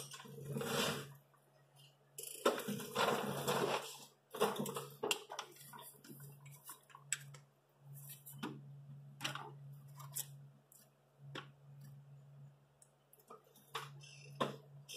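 Irregular metal clicks and clinks of a socket and extension being handled and fitted in an engine bay, onto a diesel glow plug. Rustling in the first few seconds, and a steady low hum underneath.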